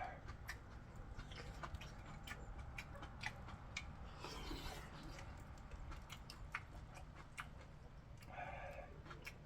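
Wood fire crackling, with irregular sharp pops and ticks over a low steady rumble. A dog gives a short whine about halfway through and again near the end.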